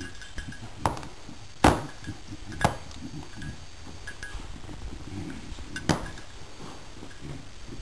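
Two puppies rooting through toys on a rag rug: a low rustling with four sharp clicks, the loudest nearly two seconds in.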